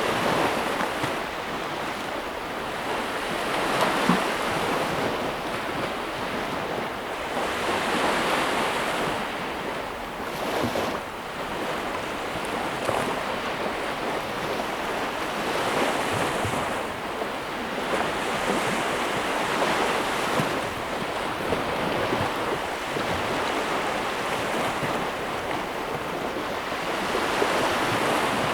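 Ocean waves breaking and washing on a shore in a continuous rush of surf that swells and ebbs every few seconds.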